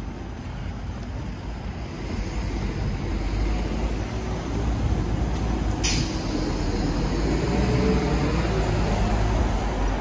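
A heavy vehicle's engine rumble growing louder as it approaches on the street, with a brief sharp hiss about six seconds in.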